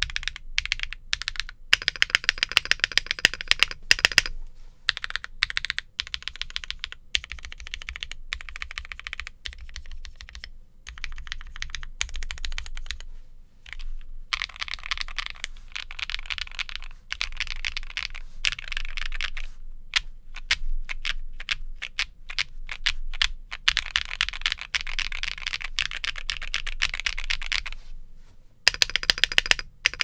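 Typing on a Monsgeek M2 mechanical keyboard fitted with lubed Akko Snow Blue Gray linear switches in a polycarbonate plate, with no PE foam and no case foam. The keystrokes come in quick runs broken by a few short pauses, and the loudest, sharpest strokes fall in the first few seconds.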